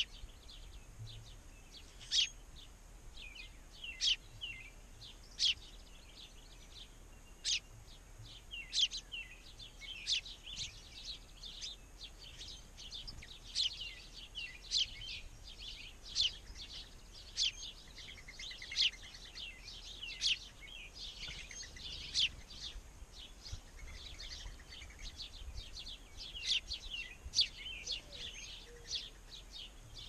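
Small songbirds chirping: a steady run of short, sharp, high chirps, a loud one every second or two with softer ones between, over faint background noise.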